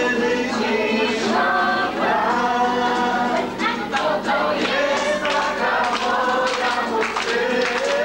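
A group of people singing a song together.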